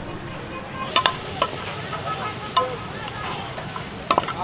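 A metal spoon stirs meat in a hot aluminium frying pan while it sizzles. The spoon clinks and scrapes sharply against the pan several times, and the sizzling hiss starts about a second in.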